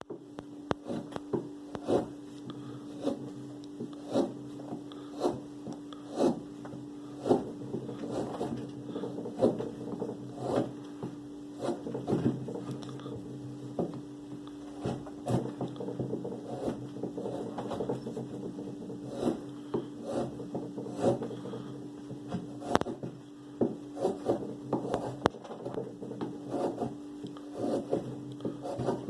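Carving blade slicing into wood in short, crisp strokes, about one a second and coming closer together in the second half. A steady low hum runs underneath.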